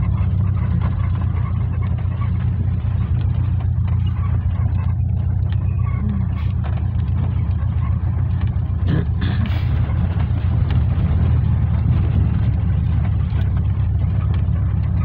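Volkswagen Kombi van driving along a dirt and gravel road, heard from inside the cabin: a steady low engine drone mixed with tyre and road rumble, with a brief knock about nine seconds in.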